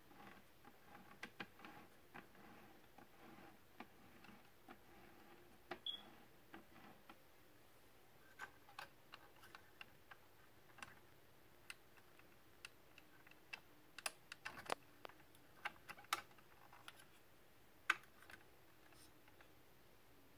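Faint, irregular small clicks and taps of a hand handling a 1/24 scale model police SUV and its display turntable, thickest about two-thirds of the way through, with one sharper click near the end.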